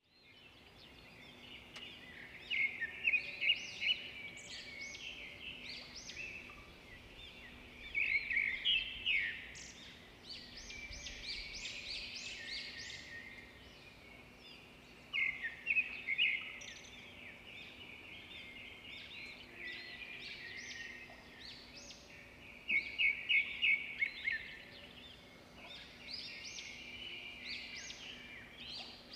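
Birds chirping and calling, with loud bursts of rapid repeated chirps every six or seven seconds and softer calls between them. A faint steady low hum runs underneath.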